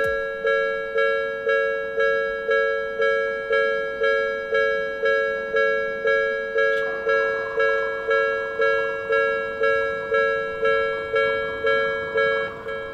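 Japanese electronic level-crossing warning bell ringing, a rapid two-tone ding repeating about twice a second. From about halfway a faint rushing noise builds under it as a train approaches.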